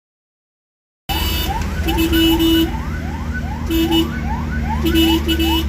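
An emergency vehicle's siren yelping in quick rising sweeps, about two a second, over a steady low engine rumble, with three short steady blasts of a lower horn-like tone. It cuts in abruptly about a second in.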